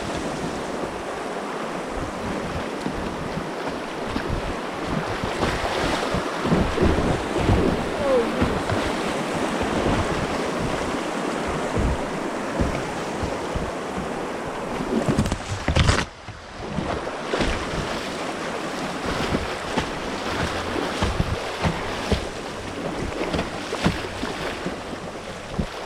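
Rushing whitewater of a class II rapid, with irregular splashes from kayak paddling and wind buffeting the microphone. The sound briefly dulls and drops about two thirds of the way through.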